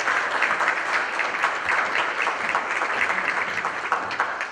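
Audience applauding, a dense patter of many hands clapping that tapers off near the end.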